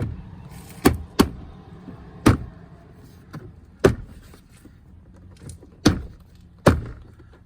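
A car door card being pressed back onto the door, its large plastic retaining clips snapping into their holes with about seven sharp knocks at uneven intervals.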